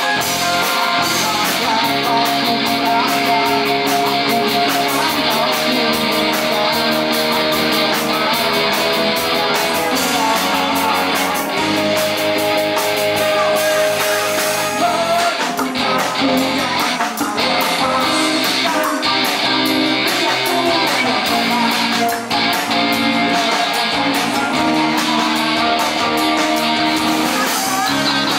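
Live rock band playing: electric guitars, bass guitar, keyboard and drums, with vocals.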